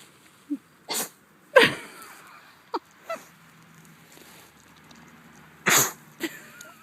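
Pigs sneezing: two sharp sneezes about a second in, the second the loudest, and another near the end, with a few shorter, quieter sounds between.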